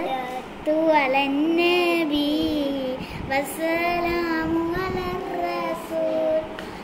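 A child's voice singing a Malayalam song in praise of the Prophet Muhammad (a madh song), holding long wavering notes that glide from pitch to pitch.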